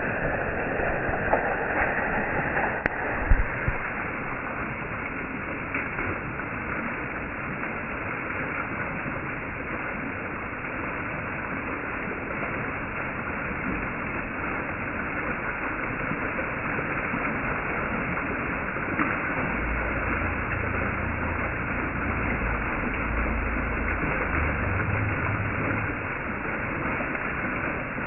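Small waterfall streaming and splashing down a rock face: a steady rush of falling water. A low rumble joins it in the second half.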